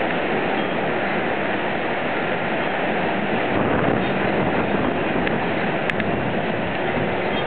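Heavy rain pouring down, a steady dense hiss of falling water with a couple of faint clicks near the end.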